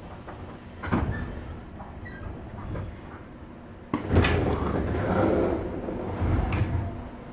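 JR West 201 series commuter train standing at a station: a knock about a second in, then about four seconds in the passenger doors open with a sudden bang followed by about three seconds of noise.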